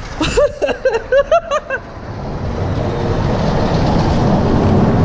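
A man's voice in quick short bursts, then a low rumble that builds and holds: traffic rolling over the concrete interstate bridge overhead.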